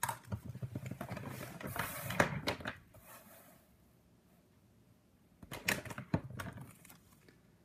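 Handling noise of craft supplies and card stock on a tabletop: a couple of seconds of rapid clicks and rustling, a pause, then a shorter bout of clicks as a sheet of card is set down and adjusted by hand.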